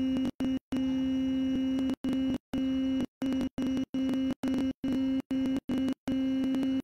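A woman's Bhramari pranayama (humming-bee breath) hum, a steady nasal 'mmm' held on one low pitch through the exhalation. It is broken up again and again by sudden brief dropouts to silence, about every half second.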